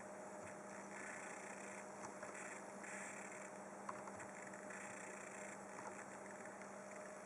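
Faint electrical buzzing and hissing from a faulty Asus Z170I Pro Gaming motherboard, heard only while the Skylake's integrated HD 530 graphics drive the desktop. The hiss comes and goes in short patches as the page is scrolled, over a steady faint hum.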